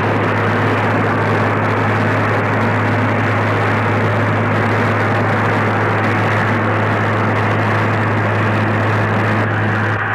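Steam locomotive blowing off steam: a loud, steady hiss over a constant low hum.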